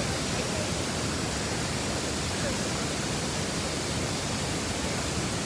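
Waterfall running, a steady even rush of falling water.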